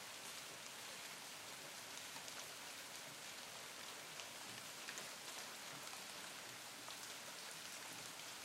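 Steady rain falling on tree leaves, with many scattered drop ticks.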